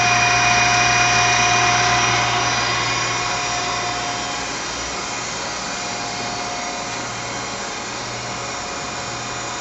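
Live back-working tools of a Tsugami BS32C Mark II CNC Swiss lathe spinning at 2000 RPM, giving a steady whine of several tones over a low hum. The whine grows quieter a few seconds in, then holds steady.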